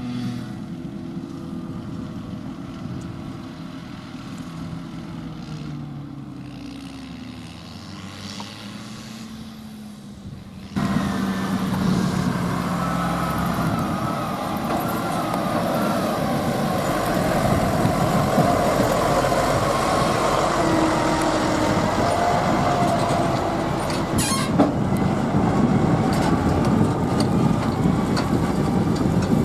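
Heavy diesel farm machinery at work harvesting grass silage. First an engine whose pitch falls slowly, then, after a sudden jump in level about eleven seconds in, louder machinery running with a wavering whine over the engine.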